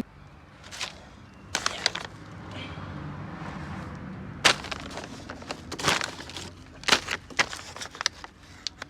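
Handling noise: soft rustling with a scattered series of sharp clicks and knocks, the loudest about four and a half, six and seven seconds in.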